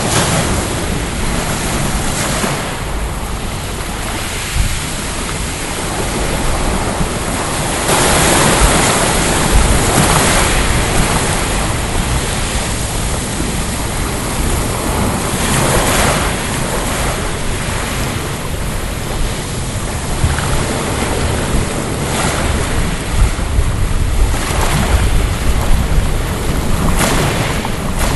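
Sea waves washing onto a pebble beach, rising and falling in surges, with wind buffeting the microphone as a low rumble.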